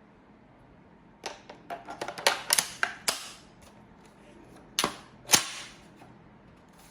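Golden Eagle M16A1 airsoft rifle giving sharp cracks: a quick irregular run of about eight over two seconds, then two more about half a second apart.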